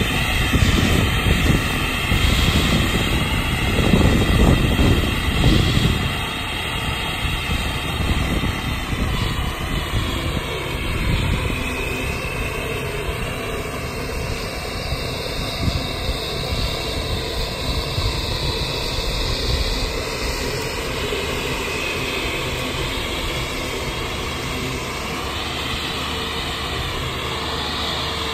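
Driverless tractor unit towing a reel mower, its machinery running steadily with a high whine over a low rumble; the rumble is stronger for the first six seconds or so.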